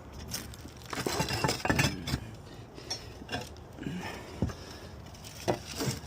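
Hard roof tiles clinking and scraping against each other as they are handled and shifted, in a cluster of sharp knocks about a second in and a few scattered clinks after.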